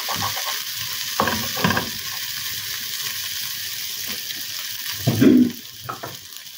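Kangkong (water spinach) stems, onion and garlic sizzling in oil in a frying pan, stirred with a wooden spatula. There are a couple of stirring scrapes about a second in and a louder stir about five seconds in, after which the sizzle quietens.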